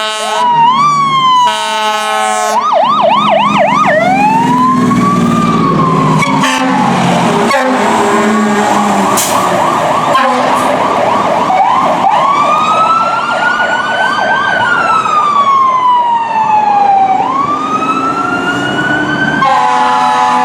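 Fire trucks responding with electronic sirens, switching between a slow rising-and-falling wail and a fast warbling yelp, with horn blasts near the start and again near the end, over the rumble of the trucks' engines.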